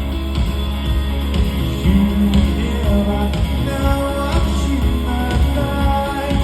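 Live rock band playing an upbeat song with a steady driving beat, with singing, amplified in a large indoor arena.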